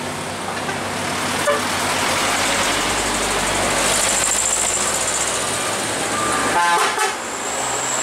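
Close road traffic: a cargo truck's engine running as it passes, loudest about halfway through, then a short horn toot about seven seconds in.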